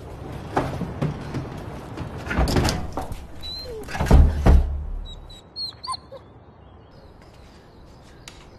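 Knocks and bumps, then a heavy door thud about four seconds in, the loudest sound; after it a dog whimpers in a few thin, high whines.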